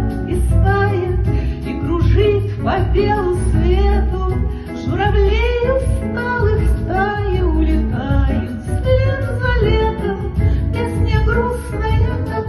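Music: a Soviet-style pop song played from a backing track, with a woman singing the melody over it.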